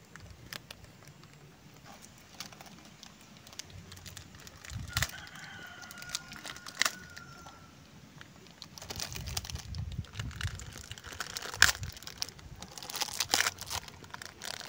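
Plastic bags of dried corn kernels crinkling and crackling as they are handled and chewed at. A rooster crows once in the background, a long call starting about five seconds in.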